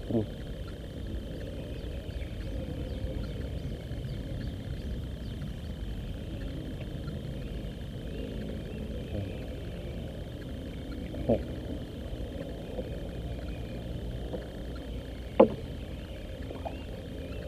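Steady low rush of a fast river current around a small wooden boat, broken by two sharp knocks about eleven and fifteen seconds in.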